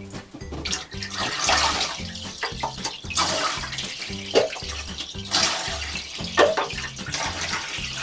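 Water poured from a cup over a small dog standing in a bathtub, splashing in several surges as the shampoo is rinsed off. Background music with a steady low beat runs underneath.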